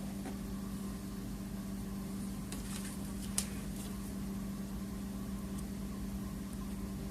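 Steady low hum, with a few faint scraping clicks and one sharp tick about three and a half seconds in, from a thermal-paste spreader working the paste over a CPU.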